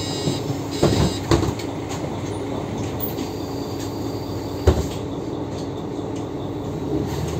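Mercedes-Benz O530G Citaro articulated bus heard from inside the cabin, its engine and drivetrain running steadily with a low hum. A few sharp knocks or rattles about a second in and near five seconds in.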